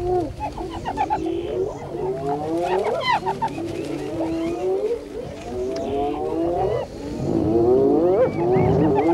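A pack of spotted hyenas calling all together as they mob lions off a kill: many overlapping calls rising and falling in pitch. It grows louder after about seven seconds.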